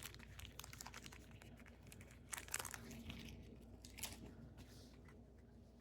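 Faint tearing and crinkling of a trading-card pack wrapper being torn open, with scattered small crackles as the wrapper is handled.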